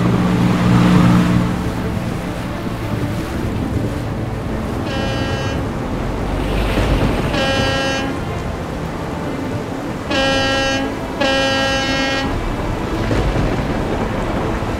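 Boat horn sounding four separate blasts on one steady pitch, the last two longer and close together, over a steady rush of boat and stormy sea.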